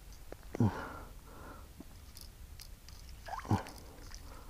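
A man sniffing and breathing, with two short wordless vocal sounds that drop in pitch, about half a second in and again near the end, and a few faint clicks.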